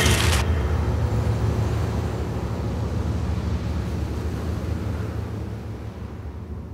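Low rumble under a noisy hiss, fading out slowly. A loud, harsh noise cuts off about half a second in.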